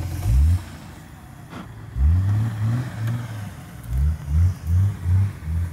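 Off-road 4x4's engine revving under load as it climbs a steep brushy bank. There is a short rev at the start, then a lull, then a longer rev about two seconds in. From about four seconds in it turns into quick repeated surges, about two a second.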